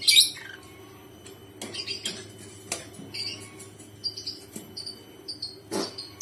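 Lovebirds chirping: a loud shrill call sweeping down at the start, then a string of short high chirps, with a few sharp clicks, over a steady low hum.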